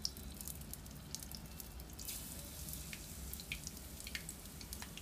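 Batter-coated paneer cubes deep-frying in hot oil in a kadhai: a sizzle full of small crackling pops, flaring briefly about two seconds in.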